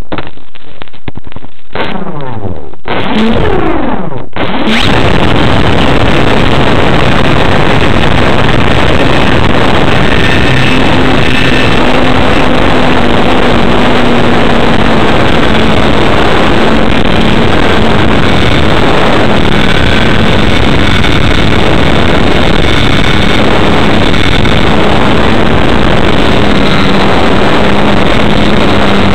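RC model airplane's motor and propeller heard from a camera mounted on the plane: a few clicks, then the motor spins up about four seconds in. It then runs steadily at high throttle, a loud continuous noise of propeller and wind on the microphone with a faint steady hum.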